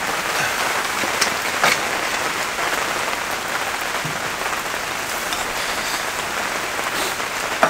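Steady rain falling, an even hiss, with a couple of faint clicks about a second and a half in.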